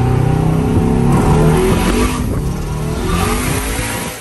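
Twin-turbo Chevrolet Silverado accelerating hard on low boost through a 3-inch exhaust with turbine mufflers, heard from inside the cab. The engine pitch climbs, dips briefly about two seconds in, climbs again, then falls away suddenly as the throttle lifts at the end.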